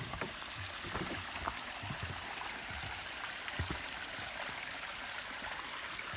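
Steady rushing water of a creek, with a few soft low thumps in the first few seconds.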